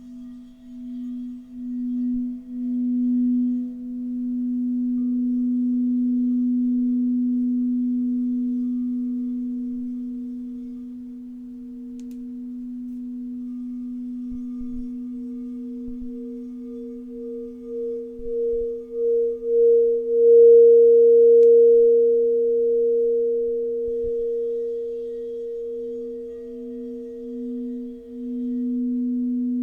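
Two sustained pure tones from a sound healing session, a low tone and a second about an octave higher. The low tone wavers and pulses at first, then holds steady. The higher tone swells to its loudest about two-thirds of the way through, then eases off.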